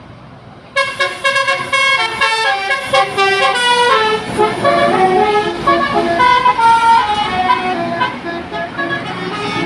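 Telolet bus horn: a tour bus's multi-tone air horn plays a quick tune of stepping notes. It starts about a second in after a brief quieter stretch and keeps changing pitch throughout.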